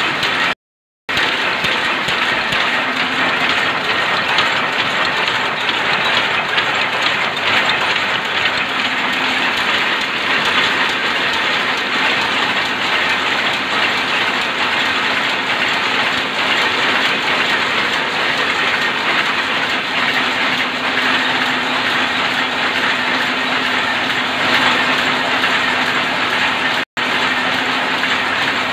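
Power loom converted from shuttle to rapier weaving, running and weaving plain cloth: a loud, steady, dense mechanical clatter with a low hum underneath.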